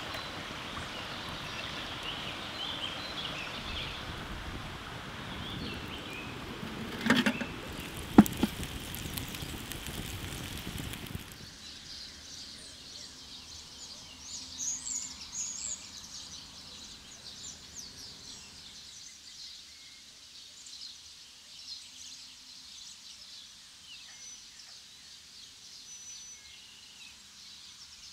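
A steady rush of running water with two sharp knocks. Partway through it cuts off abruptly, leaving quiet outdoor ambience with faint bird chirps.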